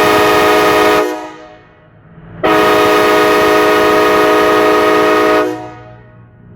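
Train horn blowing two steady blasts: a short one that cuts off about a second in, then a longer one of about three seconds, each dying away over about a second. It is sounded as a prank to fake an oncoming train at a railroad crossing.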